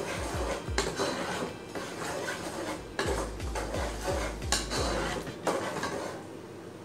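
Ladle stirring a thick vegetable stew in a metal cooking pot, scraping and knocking against the pot's sides and bottom in repeated strokes that die away near the end.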